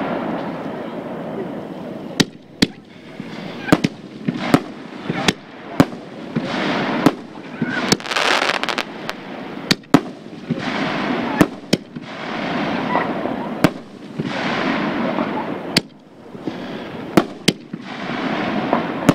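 Aerial bursts of a 5-inch canister fireworks shell: about eighteen sharp bangs at uneven intervals, with swells of rushing noise rising and fading between them.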